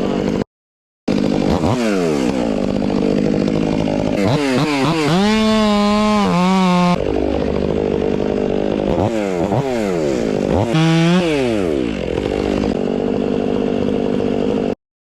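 Two-stroke chainsaw revved up and down over and over between idle and high speed, held at full speed for about two seconds in the middle. The sound drops out briefly near the start and cuts off suddenly near the end.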